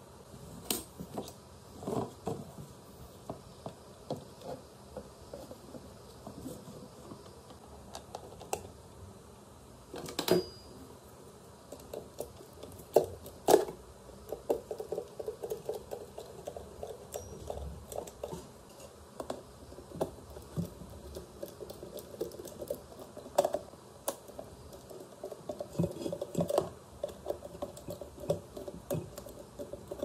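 Handling noise from taking apart a stainless-steel electric kettle: irregular small clicks, taps and rattles of its plastic parts against each other and the metal body, with a few louder knocks.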